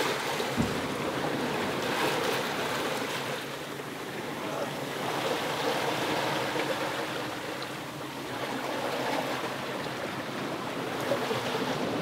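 Sea water rushing and foaming past the hull of a sailboat under way in rough seas, with wind; the rush slowly swells and eases. A dull thump about half a second in.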